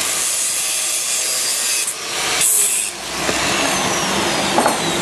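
Handheld electric angle grinder grinding against steel rod, in two passes over the first three seconds. The disc then runs free with a whine that falls steadily in pitch as it winds down, and there are a few sharp clicks near the end.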